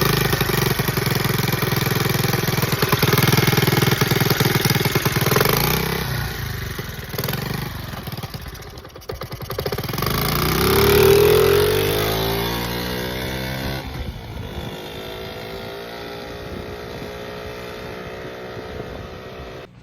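Honda Z50 minibike's small four-stroke single-cylinder engine running under throttle, loud at first and then fading. About ten seconds in it revs up and settles back, then drones steadily and grows quieter. It sounds a little rough; the builders suspect the cam timing is a tooth or so off or the valves are loose.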